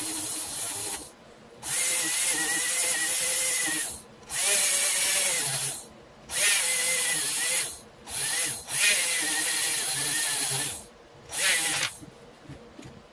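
Small rotary tool spinning a wire wheel brush against a small screw, scrubbing it clean: a scraping hiss over a high motor whine whose pitch wavers as the screw is pressed in. It comes in a series of bursts of one to two seconds with short breaks, and goes quieter near the end.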